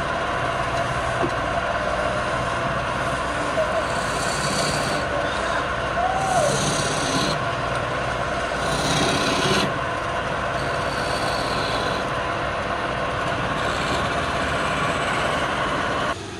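Wood lathe running with a steady motor and belt hum while a hand-held steel scraping tool cuts the spinning wood. Several sharper scraping passes come and go as the tool bites and shavings fly.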